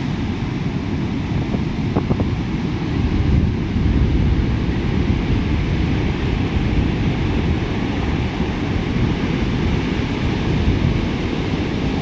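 Ocean surf breaking and rushing up the shore in a continuous heavy roar that swells louder a few seconds in, with wind buffeting the microphone.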